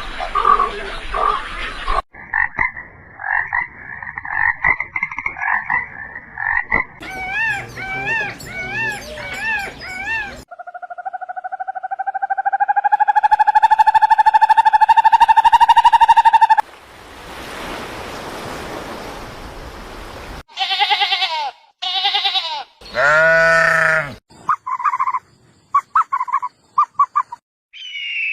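A string of different animal calls cut one after another: repeated pitched calls, then one long call that slowly rises in pitch, a stretch of hiss, and then bursts of short repeated calls.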